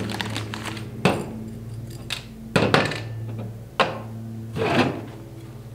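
Small metal parts for a brush cutter's blade mount (washers, a nut and a holder cup) clinking and knocking as they are handled and set down on a plastic folding table, about half a dozen sharp clicks spread over a few seconds. A steady low hum runs underneath.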